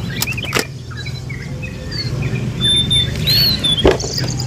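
Birds chirping over a steady low hum, with sharp knocks of plastic toy vehicles being set into a plastic storage bin: two close together near the start and a louder one near the end.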